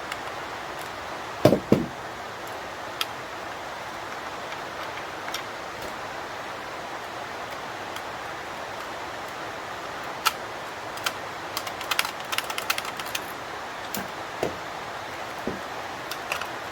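Hand dismantling of a small electronic unit: two knocks about a second and a half in, then a run of small metallic clicks and clinks later on from tools and loose metal parts. Steady rain hiss runs underneath.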